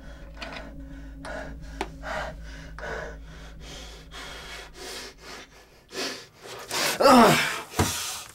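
A man breathing hard in quick, ragged gasps, about two to three breaths a second, then breaking into loud groans that fall in pitch near the end: the sounds of a man in pain from a bleeding wound.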